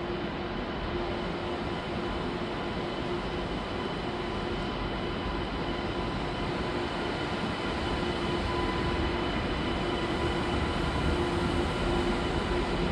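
TGV high-speed train rolling slowly along a station track: a steady rumble with a constant electric hum, growing a little louder near the end as the train draws closer.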